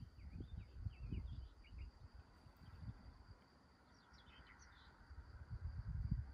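Outdoor meadow ambience: gusts of wind buffet the microphone with a low rumble, strongest at the start and again near the end. Faint bird chirps come in two short clusters, one in the first two seconds and one just after the middle, over a thin steady high tone.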